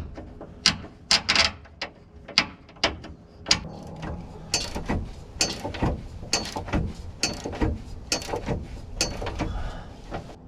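Irregular metallic clicks and clanks, a few a second, of hand tools and metal parts being handled during work under a pickup truck.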